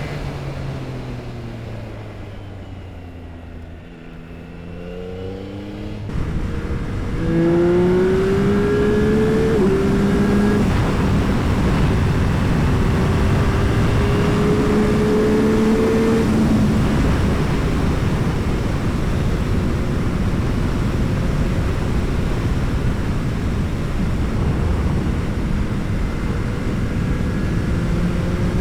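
Yamaha R9's inline-three engine through an Akrapovič exhaust, dropping in pitch and fading as the bike slows, then pulling hard with rising revs from about five seconds in, with a gear change near the ten-second mark. It then runs steadily at speed under heavy wind rush.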